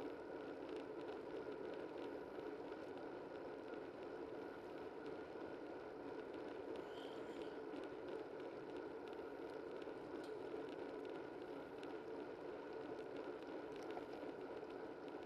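Steady rushing ride noise from a camera mounted low on a moving bicycle: wind over the camera and tyres rolling on the road, with a few faint ticks.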